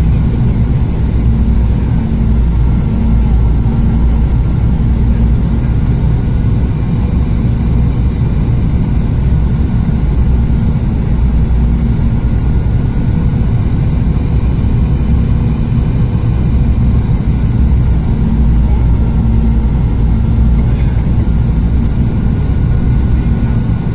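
Cabin noise inside a Boeing 717 on final approach: a steady, loud, low rumble of airflow and its rear-mounted Rolls-Royce BR715 turbofans, with a thin high whine over it.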